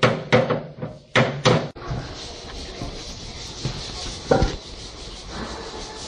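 About five sharp metal knocks in the first second and a half, hammer blows on the sheet-steel engine cover. They stop at an abrupt cut, and a steady hiss follows, with one more knock about four and a half seconds in.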